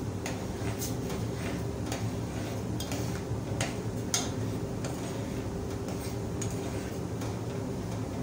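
A metal spoon stirring soup in a stainless steel saucepan, clinking against the pan's sides and bottom in irregular light taps. A steady low hum runs underneath.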